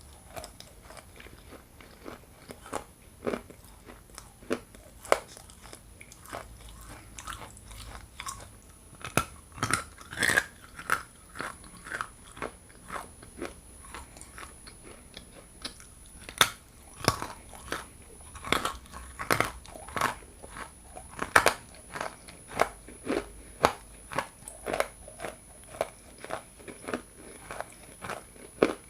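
Close-up biting and crunching of hard chunks of Ural edible clay, irregular sharp cracks with chewing between them. The loudest crunches come around the middle.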